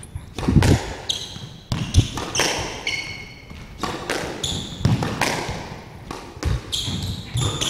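Squash rally: the ball cracking off rackets and the court walls about once a second, with short high squeaks of court shoes on the wooden floor between shots.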